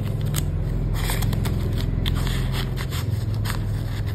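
Paper banknotes rustling and a clear plastic wallet sleeve crinkling as hands slide notes into a cash-envelope pocket, in short scattered rustles, over a steady low hum.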